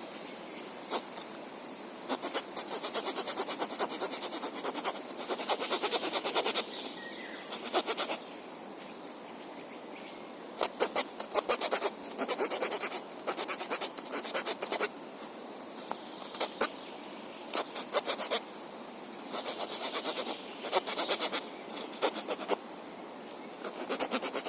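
Small folding wood saw of a Victorinox Farmer pocket knife cutting wood, in several runs of quick back-and-forth rasping strokes with short pauses between.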